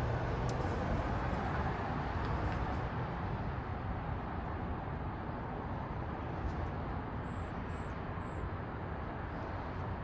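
Steady traffic noise from a city street. Near the end come several short, high-pitched chips from the hummingbirds.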